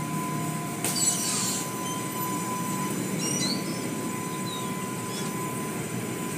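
Automatic tunnel car wash machinery running, heard from inside a car: a steady mechanical hum with a constant high whine and spray noise. A burst of hiss comes about a second in, and a few short high squeaks come around the middle.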